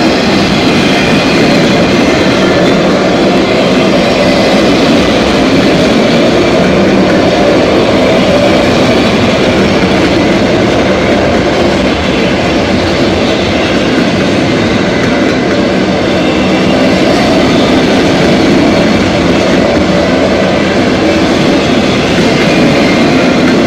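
Freight train's autorack cars rolling past: a loud, steady noise of steel wheels running on the rails.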